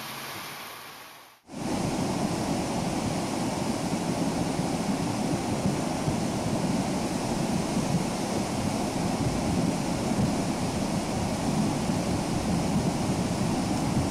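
Fast, muddy river water rushing and churning around a truck wading through it, a steady loud rush. Before it, a quieter water rush fades out to a brief near-silent gap about a second and a half in.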